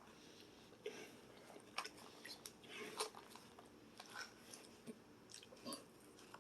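Faint, irregular crunchy chewing of a side salad of romaine lettuce, cucumbers, tomatoes and croutons, eaten without dressing.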